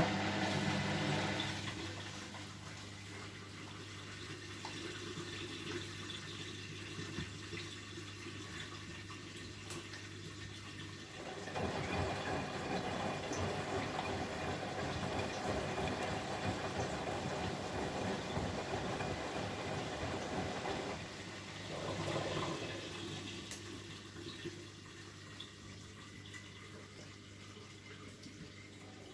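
Bosch Maxx WFL 248Y front-loading washing machine with water running through it: a steady low hum, then from about eleven seconds in a louder, even rush of water for about ten seconds, a brief swell, and a quieter stretch near the end.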